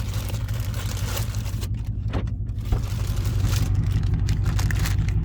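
Car engine idling: a steady low hum, with a single short click about two and a half seconds in.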